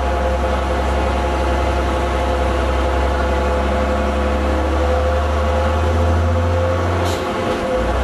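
Leyland Olympian double-decker bus engine running with a steady low drone. About seven seconds in there is a short hiss of air as the low note drops away, the 'sneeze' of its air-operated gear change.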